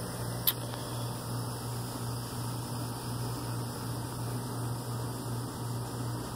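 Steady low hum under an even hiss, with a single sharp click about half a second in.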